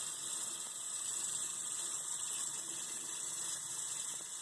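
Kitchen sink tap running steadily, its water stream splashing into the sink.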